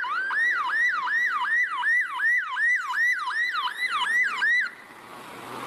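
Electronic police siren on yelp: fast rising-and-falling whoops, about three a second, that cut off about three-quarters of the way in, leaving a faint steady hiss.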